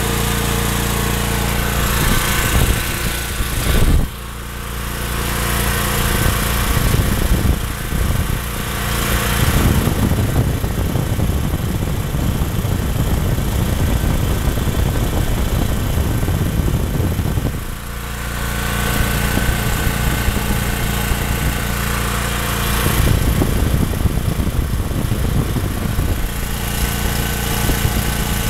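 Briggs & Stratton portable generator's single-cylinder overhead-valve engine running steadily at its no-load governed speed, around 3600–3700 rpm. The sound turns rougher and louder for stretches, the longest from about 8 to 17 seconds in.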